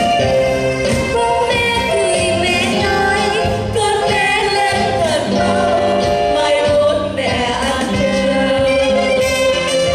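A song sung by a small group of singers over instrumental backing, the voices holding long notes with vibrato.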